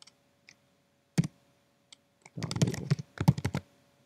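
Computer keyboard keystrokes: one sharp key click about a second in, then a quick run of keystrokes in the second half as a short word of code is typed and the file saved.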